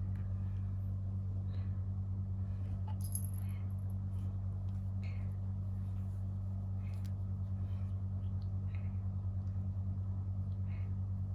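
A kitten purring steadily, a low rumble with a fast even pulse. Faint scattered light clicks and one brief jingle about three seconds in sound over it.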